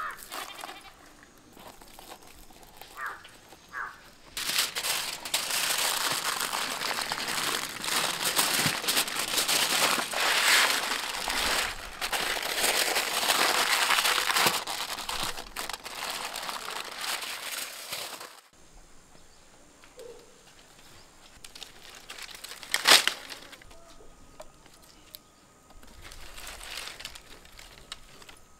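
Aluminium foil crinkling and rustling loudly for about fourteen seconds as it is folded and pressed around a banana-leaf-wrapped fish. After it stops, a quieter stretch with a single sharp snap of a dry stick being broken for firewood.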